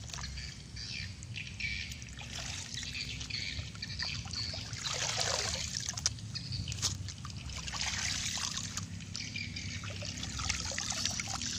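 Pond water trickling and splashing as a plastic mesh basket scoops duckweed from the surface and water drains through it, louder about five seconds in and again near the end.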